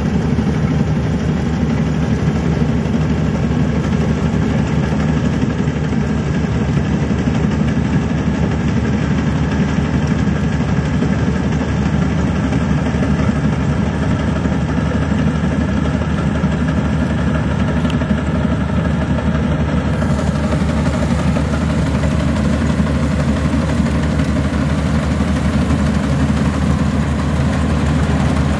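Maxxi Bimo combine harvester's diesel engine running steadily under a constant load.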